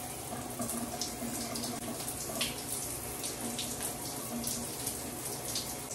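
Shower water running steadily, with occasional brief splashes.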